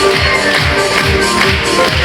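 Upbeat electronic show music with a steady kick-drum beat, about two and a half beats a second, played loud over the circus sound system.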